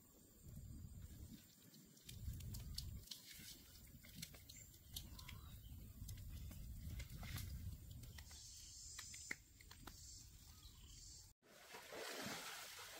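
Hands kneading spice paste into a raw pig head in a metal pan: faint wet squelching and small sticky clicks over a low rumble. Near the end it cuts to the steady rush of a stream.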